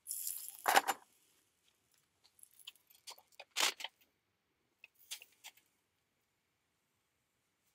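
Metal kebab skewers and a thin aluminium pan clinking and scraping on a campfire grill grate as the food is handled. There is a short rush of noise at the start, then scattered light clatters, the loudest about three and a half seconds in.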